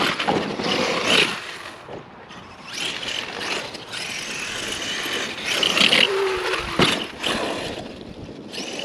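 Arrma Outkast 8S RC truck's brushless electric motor revving in bursts, a high whine rising and falling as the truck is driven hard on dirt.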